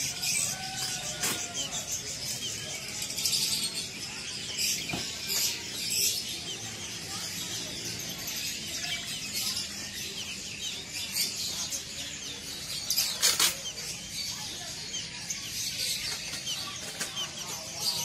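A crowded wire cage of small songbirds chirping together: a dense, steady chatter of short high calls. A few sharp flutters or knocks stand out, the loudest about two-thirds of the way through.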